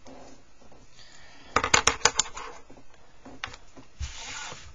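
Pencil and plastic set square handled on a drawing desk: a quick cluster of sharp clicks and taps about a second and a half in, another click a little later, then a low thump and a brief scuffing sound near the end.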